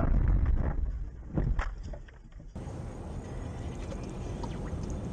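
A car running off the road and jolting across rough ground: loud rumbling that dies away, with a sharp knock about a second and a half in. After an abrupt cut, quieter steady traffic noise with faint ticks.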